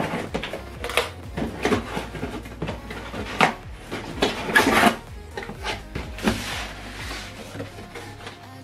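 Cardboard boxes being handled: knocks, rustles and scrapes as one carton slides against another, with the longest and loudest scrape about four and a half to five seconds in.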